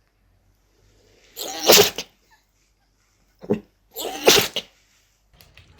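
A dog sneezing twice, about two and a half seconds apart, as part of a fit of repeated sneezes. The second sneeze comes with a short snort just before it.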